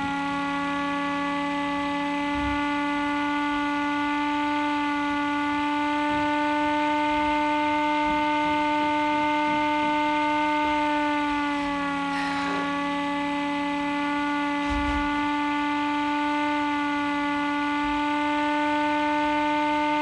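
Small 12-volt electric motor siren sounding a steady full-alert tone. The pitch dips slightly about halfway through, then settles back.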